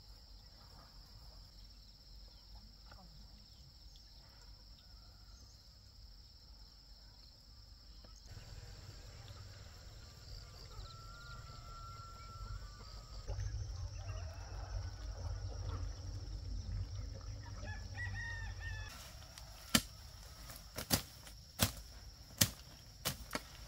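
A rooster crows once, a held call, over steady insect chirring, followed by shorter chicken calls. Near the end comes a run of sharp knocks, about one a second.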